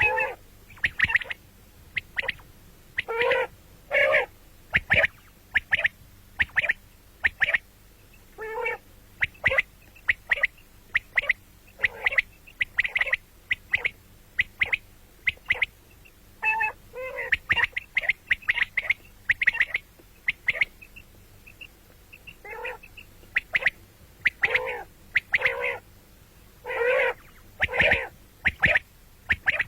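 Common quail calling: many short, sharp notes at irregular intervals, often in quick clusters of two or three. Some calls are lower and coarser.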